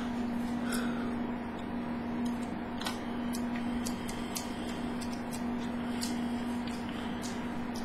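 Small screws being fitted and tightened with a hand screwdriver into a hard drive in its external enclosure, giving about a dozen faint, irregular clicks and ticks over a steady low hum.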